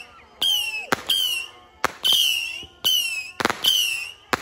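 Multi-shot whistling firework firing in quick succession: each shot is a sharp bang paired with a short, slightly falling whistle, about seven or eight of them, roughly every half second.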